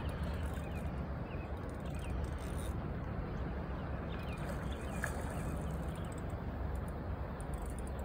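Wind rumbling steadily on a phone microphone over open water, with a few faint high chirps now and then.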